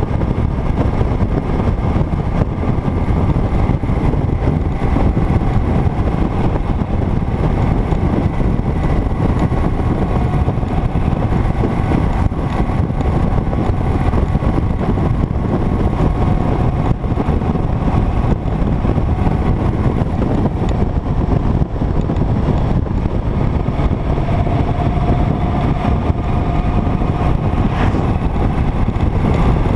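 Motorcycle riding at road speed: a steady rush of wind across the microphone over the engine's running hum, with an engine tone that grows stronger for a few seconds near the end.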